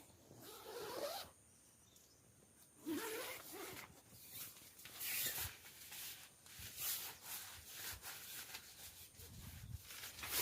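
A zipper pulled in a series of short strokes, some with a quick rising zip, with fabric rubbing and rustling between them.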